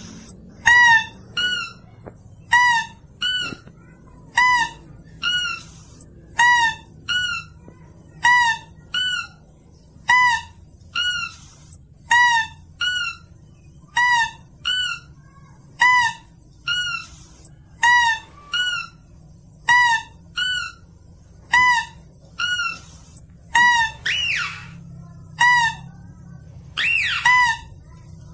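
Mouse-deer (kancil) lure call, used to draw mouse-deer in: short calls in pairs, one pair about every two seconds, the second call of each pair higher and softer. Twice near the end a longer rising cry overlaps the pattern.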